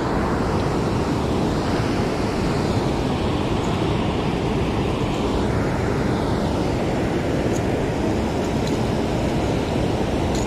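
Steady, loud rushing noise with no break, heaviest in the low end: wind and moving water at the shore.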